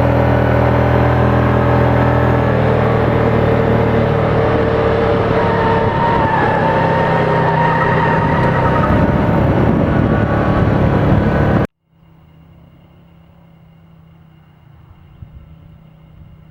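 The 500 cc petrol engine of a child-size Bugatti Veyron replica running at speed, a steady engine note with small rises and dips in pitch. About twelve seconds in it cuts off abruptly, leaving only a faint low hum.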